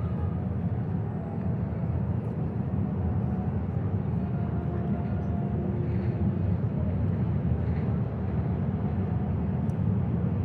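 Steady night-time city ambience: a continuous low rumble of distant traffic, with faint scattered sounds over it.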